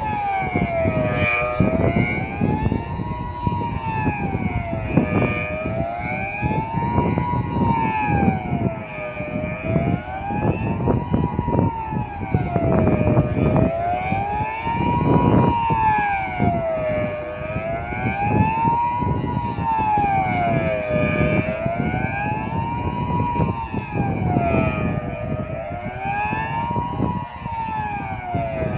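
Outdoor civil-defence siren sounding the Swiss general alarm: a loud wail that rises and falls evenly, about once every four seconds. Low rumbling noise on the phone's microphone sits underneath it.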